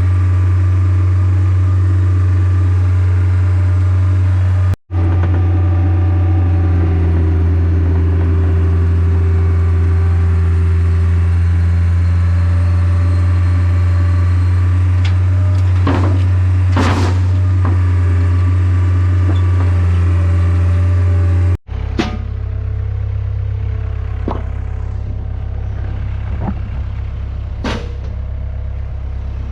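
Large engine idling with a steady low drone, broken by two abrupt cuts and a little quieter after the second one. A few sharp knocks and clatters sound over it in the second half.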